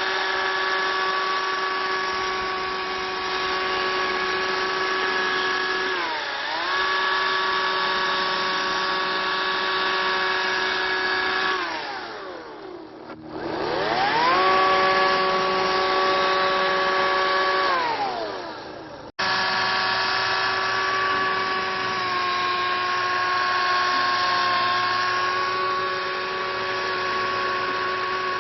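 Battery-powered electric chainsaw running as it cuts into a pumpkin, a steady high motor whine. Its pitch dips briefly, then winds down nearly to a stop and spins back up, and about two-thirds of the way through it cuts off abruptly and comes straight back.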